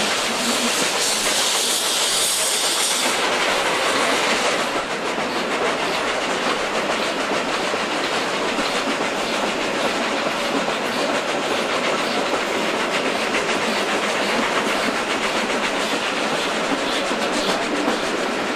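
Vintage steam-hauled metre-gauge train running, heard from an open carriage: steady wheel clatter and rumble on the track, with a loud hiss in the first few seconds that fades out.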